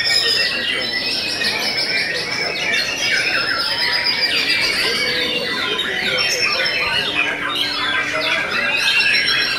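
White-rumped shamas (murai batu) singing in contest, many birds at once: a dense, unbroken tangle of whistles, chatters and quick trills.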